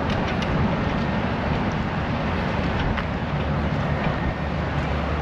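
Outdoor street ambience: a steady low rumble of road traffic, with a few faint ticks.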